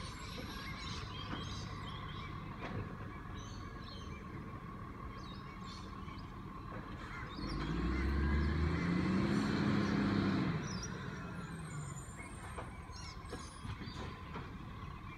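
A distant garbage truck's diesel engine running at a steady idle. For about three seconds around the middle its revs climb and then fall back.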